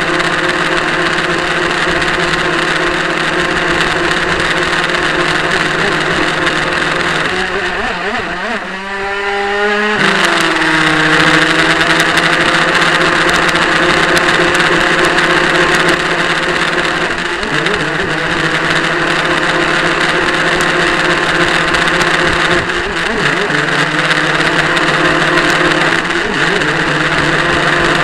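Motor of a radio-controlled model powerboat running steadily at speed, heard close up from a camera on board. About eight seconds in the pitch drops as the throttle is eased, then climbs back two seconds later; shorter dips come near eighteen and twenty-three seconds.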